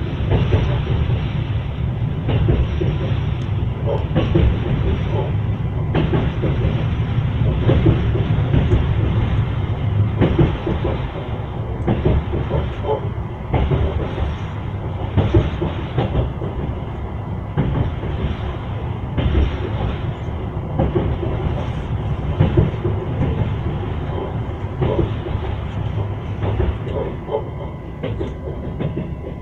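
Train wheels clattering over the rail joints as the train runs along: a steady low rumble with repeated knocks.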